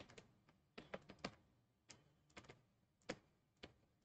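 Faint, irregular clicks and taps of a stylus on a pen tablet while words are handwritten, about a dozen sharp clicks over a few seconds.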